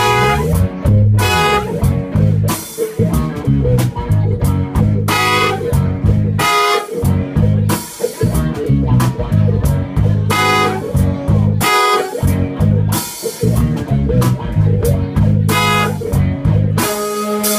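Live band playing an upbeat groove: a driving electric bass line and drum kit under guitar, with a horn section of saxophones, trumpet and trombone.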